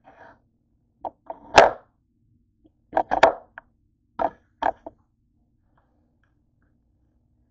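Thick cucumber slices being picked up and set down on a kitchen countertop: sharp thunks in small groups, the loudest about a second and a half in.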